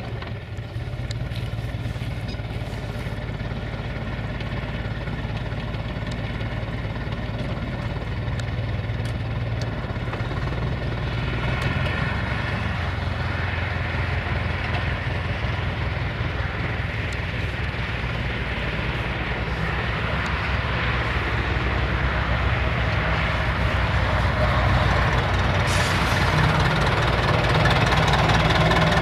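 UTB U650 tractor's four-cylinder diesel engine running steadily under load while ploughing, growing a little louder in the second half.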